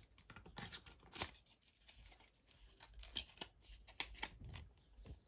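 Faint handling noises of cosmetic products and their packaging: a few scattered light clicks and rustles, the sharpest about a second in.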